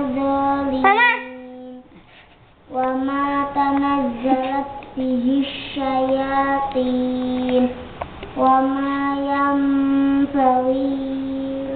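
A child's voice chanting Qur'anic verses in slow, melodic recitation, holding long steady notes with short breaks for breath.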